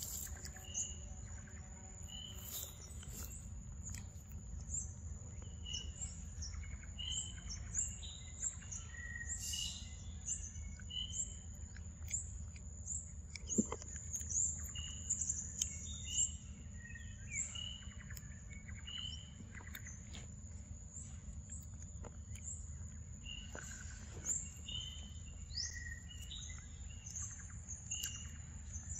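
Forest birds chirping, many short calls repeating throughout, over a steady high-pitched insect drone and a low rumble of background noise.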